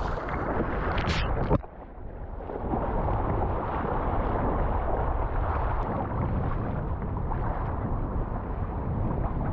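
Ocean water washing around a sea kayak with wind buffeting the microphone; a brief louder rush of water about a second in cuts off sharply.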